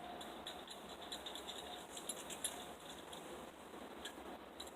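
Faint, irregular light clicks and rattles from a clamp being handled and its screw twisted open.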